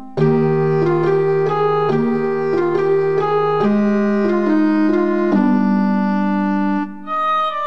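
Background instrumental music of sustained notes and chords that change about every second. It drops out briefly near the end before a new, higher phrase begins.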